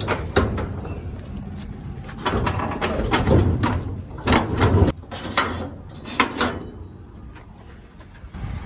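Steel sliding bolt on a corrugated sheet-metal gate being worked open by hand, then the gate swinging, in bursts of metallic clanks and rattles, the busiest stretch from about two to five seconds in.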